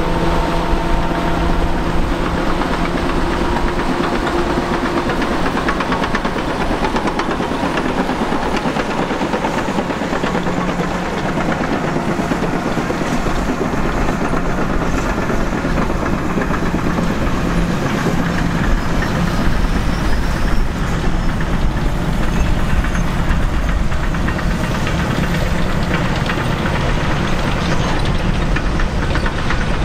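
Caterpillar D8K crawler tractors working with a towed scraper box: heavy diesel engines running under load over the clank and rattle of steel tracks. A steady engine note in the first few seconds gives way to a dense clatter.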